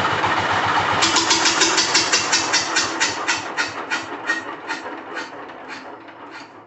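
Tobata Coyote micro-tractor's 18 hp single-cylinder diesel engine running, then shut off about a second in: its beats slow down and fade as the flywheel coasts to a stop.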